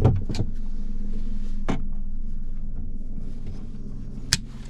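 A few light handling clicks as an insulated white electrical wire is positioned, then a single sharp snip near the end as hand wire cutters cut through it, over a steady low hum.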